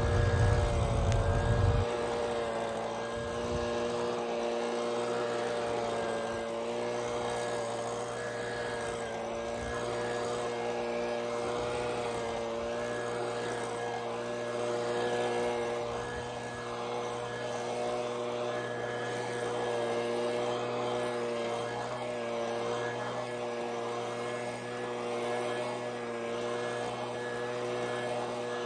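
Gas backpack leaf blower running at a steady, constant throttle with its engine drone and rushing air. A heavier low rumble comes through over the first couple of seconds.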